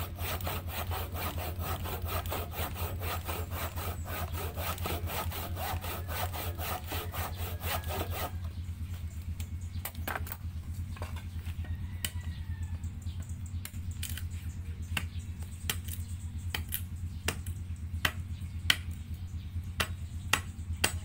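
Handsaw cutting a wooden plank by hand in quick, even back-and-forth strokes that stop about eight seconds in. Scattered sharp knocks and clacks of wood pieces being handled and set down follow.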